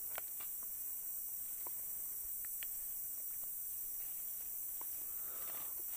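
Quiet outdoor ambience: a steady high hiss with a few faint scattered ticks and soft rustles, and no distinct event.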